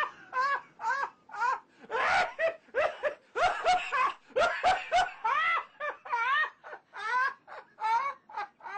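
Long, hearty laughter: a run of short ha-ha bursts, about two or three a second, each rising and falling in pitch.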